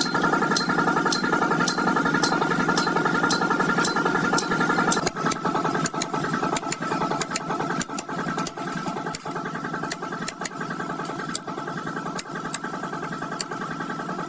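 A motor-driven machine running steadily, with sharp ticks about twice a second; it eases a little and changes character about five seconds in.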